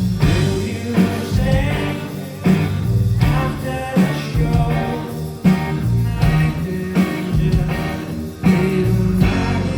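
Live indie rock band playing, with a singing voice over electric guitars, bass and drums; strong drum hits land about once a second.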